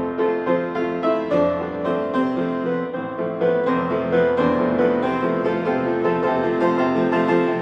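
Grand piano played live, an improvised waltz with steady left-hand accompaniment under a melody, growing a little louder about halfway through.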